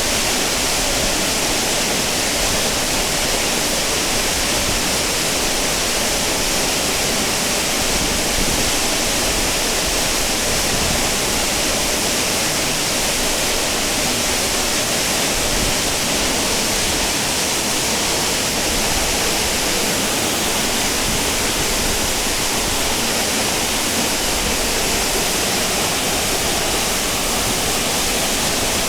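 Waterfall on a mountain stream rushing steadily, its flow swollen by rain.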